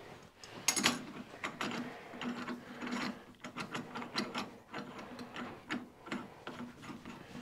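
Four-jaw lathe chuck's jaw screw being wound with a chuck key: a run of irregular metallic clicks and rattles as the jaw is moved.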